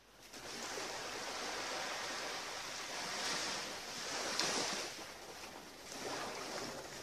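Ocean surf washing onto a beach, the noise of the waves swelling to its loudest about four seconds in, easing, then building again near the end.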